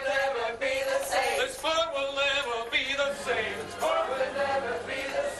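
Music with male voices singing together in long held notes.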